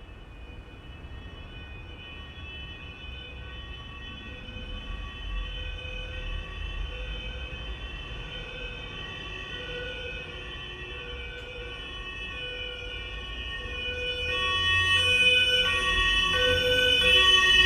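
Ambulance siren sounding a two-tone hi-lo pattern, alternating about once a second over a low vehicle rumble. It grows steadily louder as the ambulance approaches, loudest near the end.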